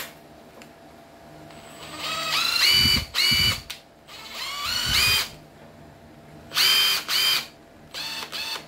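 Makita TS131 cordless oil-impulse driver run unloaded in a series of short trigger pulls. Each time the motor whines up in pitch and holds briefly before stopping, about six times from a couple of seconds in.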